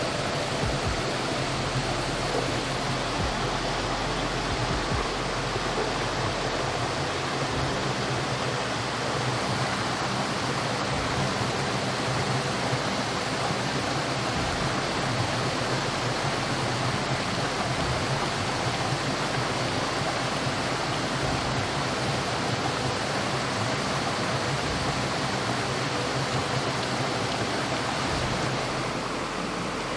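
Steady rushing water noise, easing slightly near the end.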